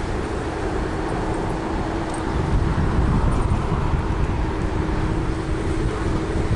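Ride on a Ninebot Max electric kick scooter through city car traffic: a steady rumble of wind on the microphone mixed with passing traffic, and a steady low hum.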